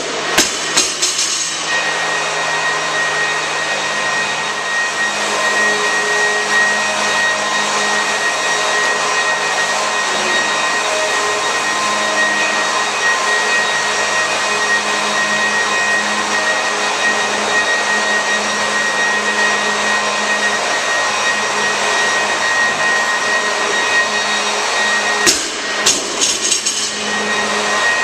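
Large drum fan running with a steady loud whir. About a second in, a loaded barbell with bumper plates bounces and rattles to rest on the lifting platform after being dropped, and near the end there is a short run of knocks.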